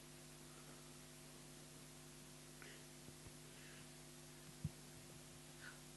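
Near silence: a steady electrical hum at several fixed pitches, with a single soft low bump about four and a half seconds in.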